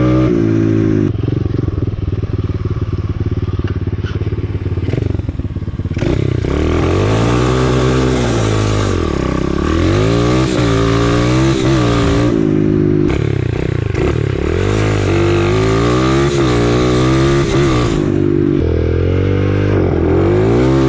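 125cc dirt bike engine under way, heard from the rider's helmet. It holds a fairly steady pitch for the first few seconds, then from about six seconds in the revs rise and fall repeatedly as the throttle is opened and closed.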